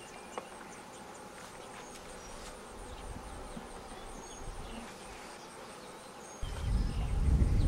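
Honey bees buzzing around an opened hive during a nectar dearth: a steady, fairly faint hum with single bees flying close past. A loud low rumble sets in about six seconds in.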